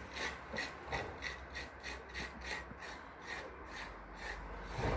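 Rhythmic rasping scrapes, about three even strokes a second.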